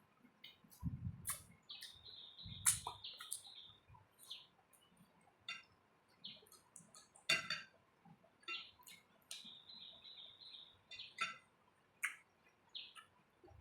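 Faint close-up eating sounds: irregular wet mouth clicks and smacks of someone chewing a mouthful of rice and curry, with a couple of dull low thumps in the first few seconds.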